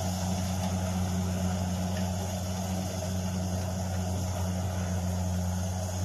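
Combine harvester engine running steadily while harvesting corn, a constant low drone.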